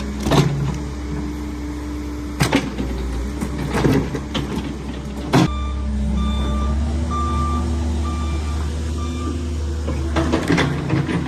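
Cat 308 excavator's diesel engine running steadily, with several sharp knocks and cracks as it works at the tree and its roots. In the middle comes a row of short, evenly spaced beeps, like a machine's travel alarm.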